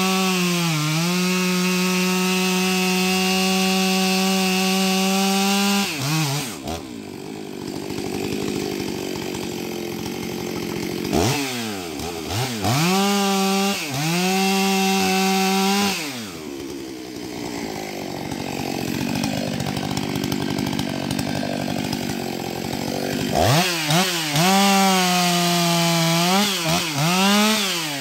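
Stihl MS 661 C, a 91 cc two-stroke chainsaw, cutting through beech logs at full throttle. Twice it drops back to idle between cuts, then revs up again with several quick throttle blips before settling into a steady high-revving cut.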